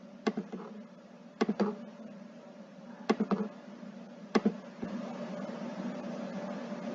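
Computer mouse clicks, single and in quick pairs, about a second or so apart, as points of a sketch are placed in CAD software. A low steady hum runs under them and gets a little louder about five seconds in.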